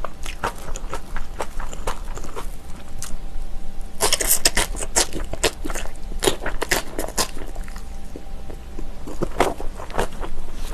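Close-miked chewing of crunchy kimchi: a run of wet crunches and mouth clicks, thickest and loudest from about four seconds in to about seven.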